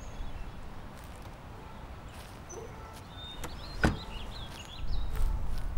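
Outdoor ambience with small birds giving short chirps, a single sharp knock about two-thirds of the way through, and a low rumble that grows louder near the end.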